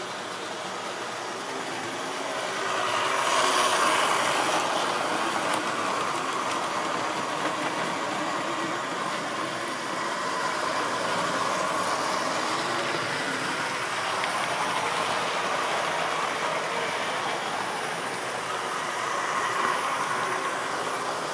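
Model railway trains running round the layout's track, a continuous mechanical rattle and whirr of small wheels and motors on metal rail. It grows louder whenever a train passes close by, most of all about three to four seconds in.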